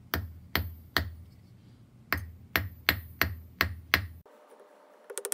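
A cross-peen hammer strikes sterling silver wire laid on the edge of a steel anvil, forging the shoulders of a leaf into the wire. There are about nine sharp blows: three in the first second, then a brief pause, then six more in a quicker run. A few light clicks follow near the end.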